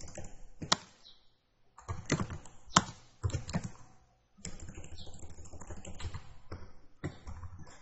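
Computer keyboard typing in uneven bursts of keystrokes, with brief pauses between them.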